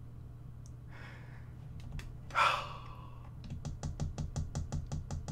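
A man's stifled, breathy laughter: a sharp puff of breath, then a rapid run of short wheezing pulses, about six a second.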